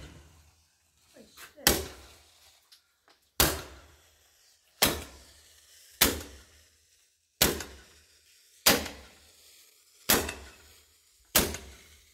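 Roman candle firing shot after shot, eight sharp pops about every second and a half, each with a short fading tail.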